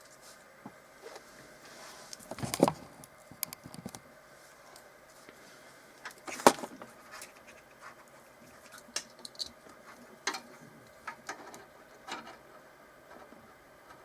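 Hands handling LED leads and their small plastic connectors inside a PC case: scattered clicks, light knocks and rustles. There is a sharper knock about two and a half seconds in and the loudest knock about six and a half seconds in.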